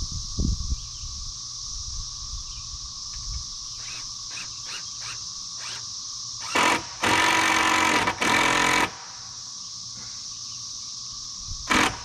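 A cordless power driver runs in bursts as he fastens the wooden rafters: a short blip, then a run of about a second and a half and another of about half a second, with two short blips near the end.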